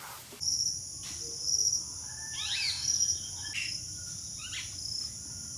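A steady, high-pitched outdoor insect chorus, with a few brief, indistinct knocks and scrapes over it.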